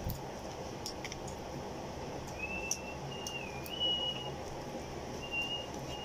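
Quiet background with a few light clicks from shrimp and mussel shells being handled by hand. A faint, thin, high whistle wavers in pitch in the middle and comes back briefly near the end.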